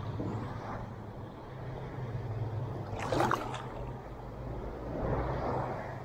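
Small waves lapping and sloshing in shallow sea water under a steady low hum, with a brief splash about three seconds in.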